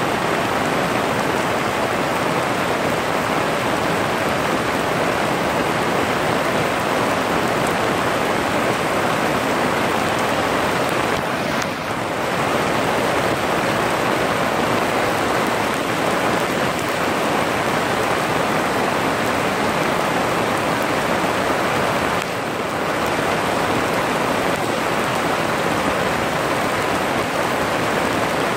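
Steady rain falling on lotus leaves and grass.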